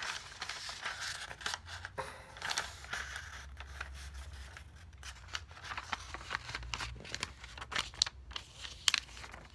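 A sheet of paper being handled and worked by hand: crisp rustles and creasing, with scattered sharp snaps and a few louder ones near the end.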